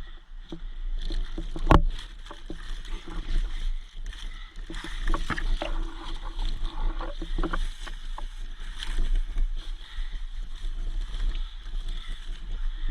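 Steady low rumble with irregular rustling of movement, a steady high-pitched drone, and one sharp click nearly two seconds in.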